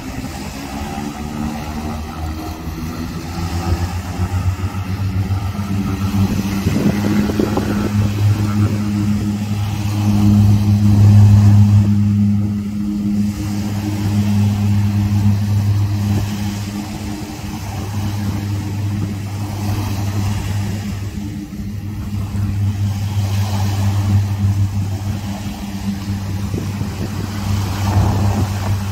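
Seaplane's propeller engines running at takeoff power on its run across the water: a steady low hum that grows loudest about ten seconds in.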